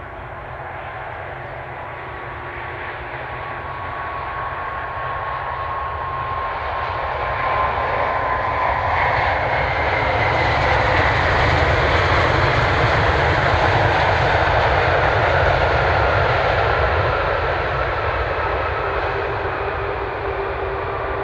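Jet engines of a South African Airways Airbus A340 on landing approach, passing by. The noise builds for about ten seconds, holds, then fades, with a few whining tones that slowly drop in pitch.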